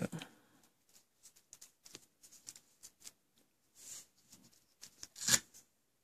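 Faint crinkling and ticking of duct tape petals being handled and pressed onto a pencil-top flower by fingers, with a louder crackle of tape just after five seconds in.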